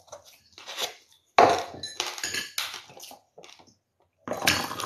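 Knocks and clatter as a thermos flask is picked up and handled at the table, the loudest a sharp knock about a second and a half in. Near the end a steady pour of coffee from the thermos into a plastic cup begins.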